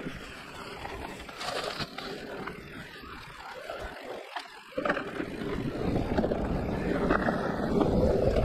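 Giant Reign E+ electric mountain bike riding fast down a dirt forest trail: wind rush on the camera microphone with tyre and frame rattle. It dips briefly about halfway, then grows louder.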